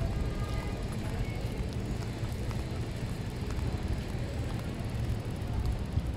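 City street traffic heard from a moving bicycle: a steady low rumble with a few light clicks.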